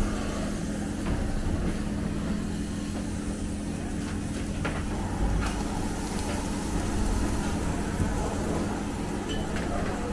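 Steady hum and hiss of a restaurant grill station as a steak sizzles on the grill grate, with a few light clicks of utensils.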